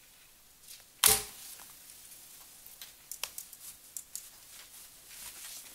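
A single sharp knock about a second in, then scattered light clicks and rustling, like small things being handled.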